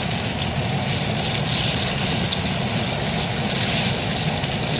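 Battered bass fillets deep-frying in grapeseed oil in a wide skottle pan: a steady, dense sizzle and bubbling of hot oil, with a steady low rumble beneath.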